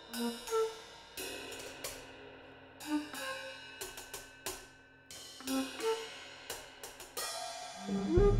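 Sparse free-form drum-kit playing: scattered cymbal and hi-hat strokes with short, separate flute notes between them. About eight seconds in, a louder, fuller passage begins with a low rising note.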